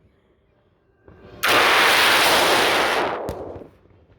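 Aerial firework going off: a sudden loud blast about a second and a half in, its noise lasting about two seconds before dying away, with a short sharp crack shortly after.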